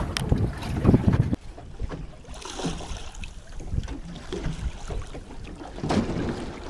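Wind buffeting the microphone with a low rumble, which stops abruptly about a second and a half in. After that comes a quieter stretch with a few faint knocks and a brief louder swell near the end.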